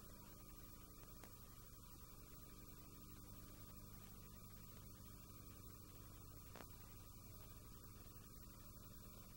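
Near silence: a faint steady electrical hum with light hiss, and two faint clicks, about a second in and again about six and a half seconds in.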